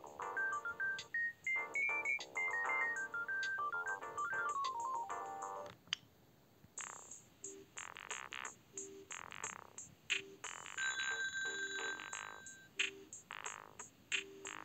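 Siemens Gigaset C59H cordless handset playing its built-in ringtones: a melodic tune of quick stepping notes that rises and then falls, stopping a little under six seconds in. After a short pause a second ringtone starts, a beat of sharp percussive hits with steady high beeps.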